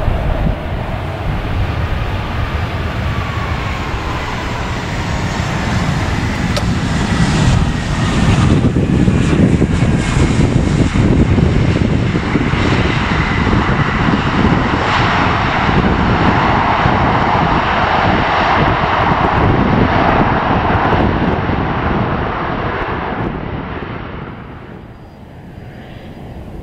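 Airbus A320-family jet airliner landing: steady jet engine noise through touchdown, growing louder in the middle as it rolls out along the runway. The noise falls away sharply a few seconds before the end, leaving fainter jet engine noise.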